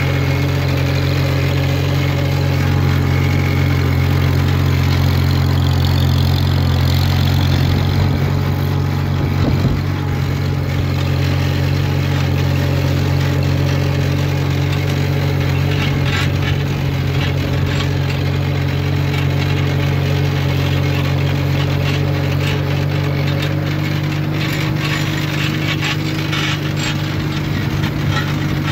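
1950 McCormick Farmall H's four-cylinder engine running steadily under load while pulling a side-delivery hay rake through cut hay.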